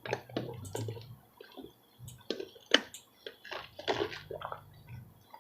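Close-up wet mouth sounds of someone eating KFC fried chicken: irregular lip-smacking and chewing clicks, one sharper smack about halfway through.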